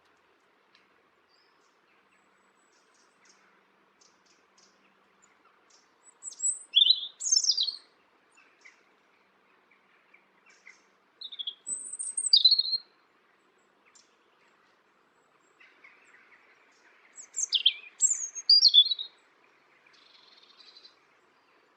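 A small songbird singing three short phrases of quick, high notes, each about five seconds apart, with near silence before the first.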